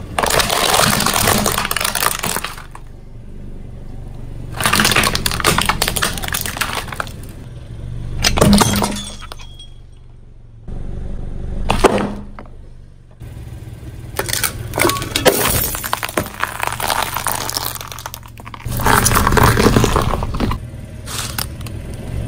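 Car tyre rolling over and crushing hard plastic toys: about six bursts of cracking and crunching plastic, each one to three seconds long, with quieter stretches between.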